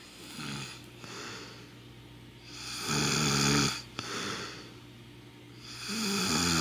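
A man snoring in his sleep: two loud snores about three seconds apart, each about a second long, with softer breaths between.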